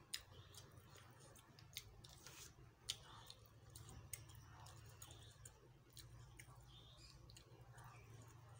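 Faint sounds of eating rice by hand from a steel plate: quiet chewing with scattered soft clicks about once a second, over a low steady hum.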